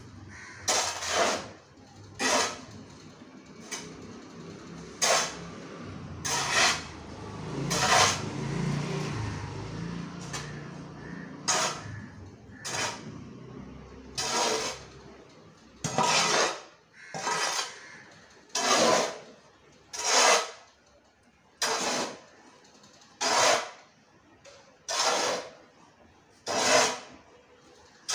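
A mammoty's metal blade scraping across a tiled floor as it drags and turns a heap of soil and compost. The scrapes are rhythmic, about one every second and a half.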